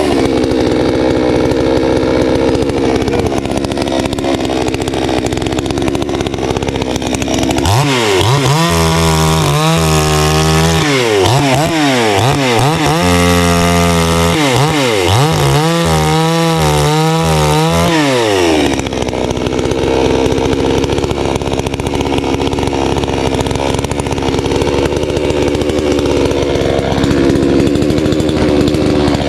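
Garwinner gas chainsaw running at high throttle while bucking a log. Through the middle stretch the engine pitch dips and climbs back again and again as the chain is loaded and let off.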